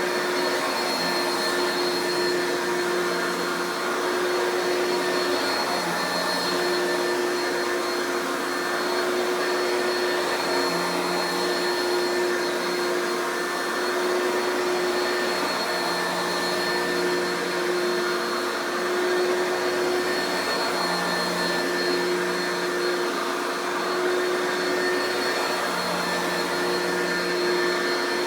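Oreck XL2 Ultra lightweight upright vacuum's two-speed motor running steadily on high speed: a loud, even rush of air with a steady whine, and a low hum that swells and fades every few seconds.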